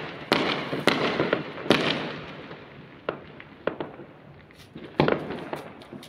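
Firecrackers and fireworks going off all around: a run of sharp bangs in the first two seconds, each trailing off in a long echoing rumble, then scattered smaller pops, and another loud bang about five seconds in.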